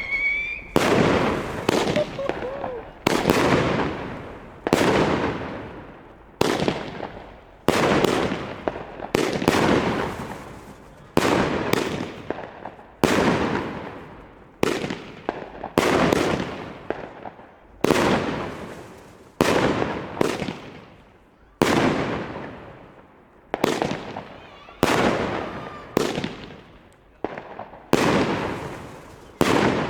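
Beisel Big Shot Cake 5 firework cake firing its shots one after another, a bang about every one and a half to two seconds, each followed by a fading crackle.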